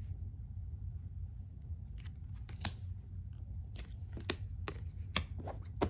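Tarot cards being handled: cards pulled from the decks and laid down on a cloth, with a few sharp card snaps and rustles in the second half, over a steady low hum.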